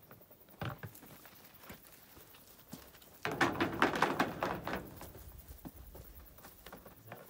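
Plastic shower gear being handled and set down: a couple of sharp knocks near the start, then a dense clatter of quick taps lasting over a second about halfway through as a mat goes down on the shower base, fading to light rustling.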